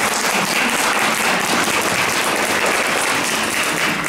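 Audience applauding steadily, dying down at the very end.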